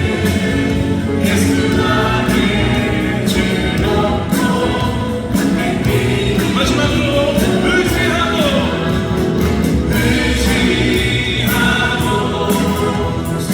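Gospel music with a choir singing over a full band with a steady beat.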